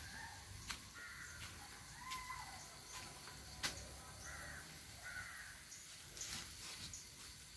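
Crows cawing repeatedly, a short call every second or so, with a few sharp clicks, the loudest about three and a half seconds in.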